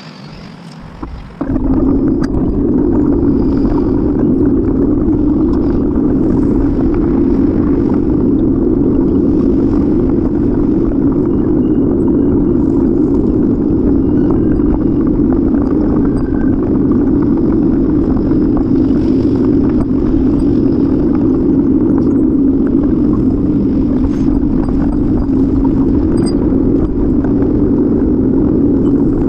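Steady rumbling of wind and road noise on a bicycle-mounted camera while riding, starting abruptly about a second in as the bike moves off.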